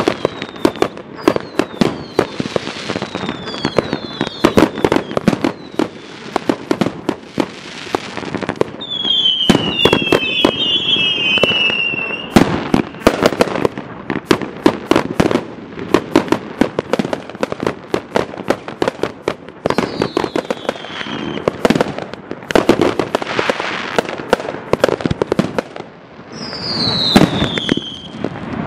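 Dominator 'Fast and Furious' 1.4G consumer firework cake firing a rapid, continuous barrage of launch thumps and bursting cracks, with falling whistles heard several times.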